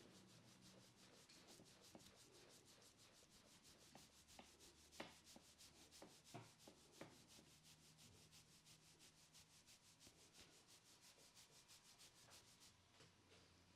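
Faint, quick rubbing of hands over a person's hair and scalp during a head massage, in an even rhythm of about four strokes a second that stops near the end, with a few soft knocks in the middle.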